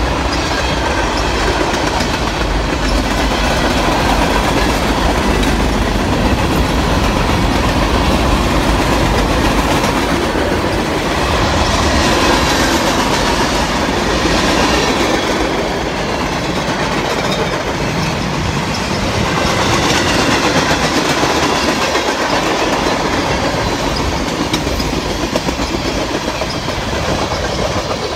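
Freight train passing close by, a long string of tank cars rolling past with their steel wheels running on the rails. The low rumble of the diesel locomotives fades over the first ten seconds or so.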